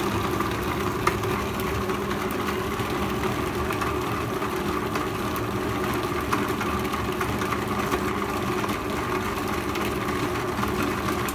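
Electric kitchen mixer running steadily with a constant motor hum as it works pizza dough, then switched off, stopping abruptly at the end.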